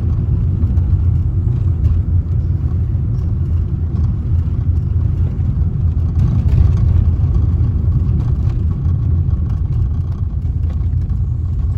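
Car driving along: a steady low rumble of engine and tyres on the road.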